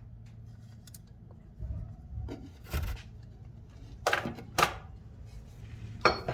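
Hand tools being handled and set down on a hard surface: a dull thump, then several sharp clicks and knocks, over a low steady hum.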